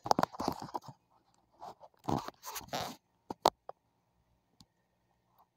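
Cattail seed head being torn and stripped by hand, its fluffy core pulling apart: a few short bursts of tearing and scraping in the first three seconds, then two or three sharp clicks.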